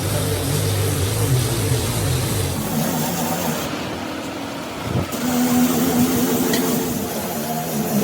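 An engine running, its pitch shifting a couple of times.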